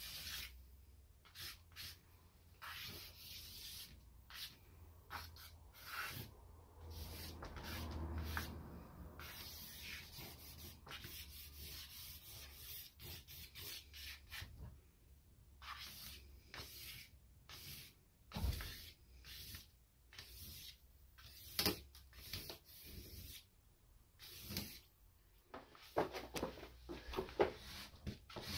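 Willow charcoal stick scratching and rubbing across cartridge paper in irregular drawing strokes, some short and some drawn out over a second or two, with a couple of sharper taps along the way.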